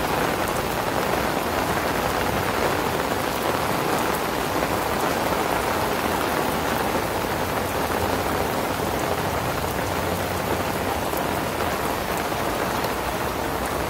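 Steady rain falling on grass and paths, an even hiss with no let-up.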